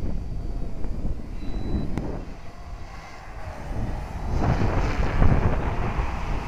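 Strong gusty wind buffeting the microphone, getting louder about halfway through, with the thin whine of a small electric Align T-Rex 250 RC helicopter's motor and rotors faintly beneath, its pitch wavering.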